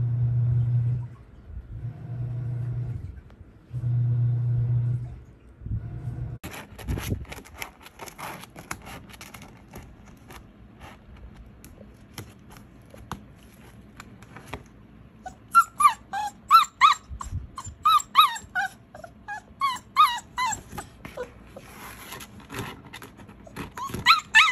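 Young puppy, about four weeks old, whimpering and yipping in a rapid series of short, high, wavering whines over the second half, with scattered claw-scratching clicks before it. The first few seconds hold a low steady hum in three short stretches.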